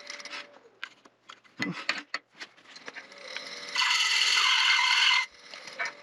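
A tool cutting wood in one steady burst of about a second and a half, past the middle, easing a piece so the lid fits. Around it are scattered clicks and knocks of the wooden parts being handled and tried together.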